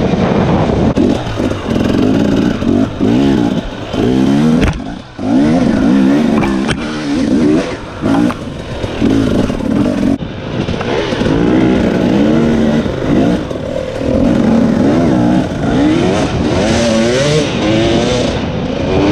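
2018 Husqvarna TX 300 single-cylinder two-stroke dirt bike engine under hard riding, its pitch rising and falling again and again as the throttle is worked, with a brief dip about five seconds in.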